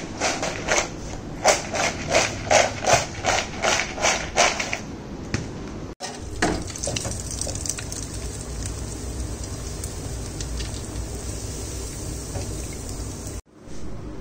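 French fries being shaken in a bowl to coat them with masala, a rhythmic rattle of about three shakes a second for the first five seconds. After a cut about six seconds in comes the steady sizzling hiss of potato pieces deep-frying in oil in a wire fryer basket.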